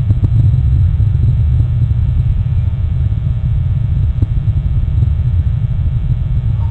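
A steady low rumble, with a few faint clicks near the start and about four seconds in.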